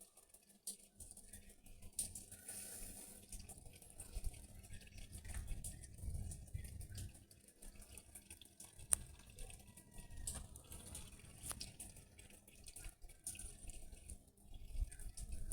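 Faint rain dripping and pattering, with scattered sharp drop clicks over a low, uneven rumble.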